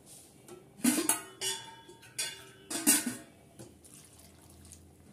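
A steel tumbler clinks against metal vessels about four times, each clink ringing briefly. Then water pours from the tumbler and splashes onto chopped bottle gourd in a clay pot.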